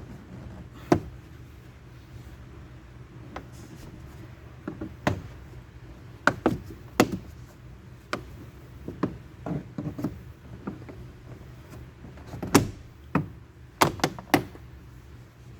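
Irregular sharp clicks and knocks of hand tools and parts being handled on a car door, over a low steady hum.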